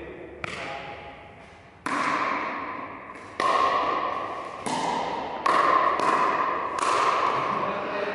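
Pickleball rally: sharp pocks of paddles and the hard plastic ball, about seven hits, a second or so apart with two close together near the middle. Each one rings on in the echo of a large sports hall.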